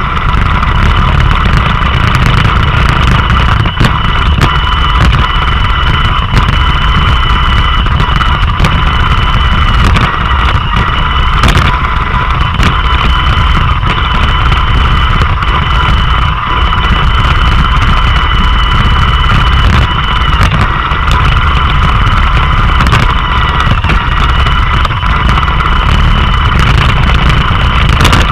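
Roomba robot vacuum running, heard up close from a camera riding on it: a steady motor whine with several high tones over a low rumble, with a few short knocks along the way.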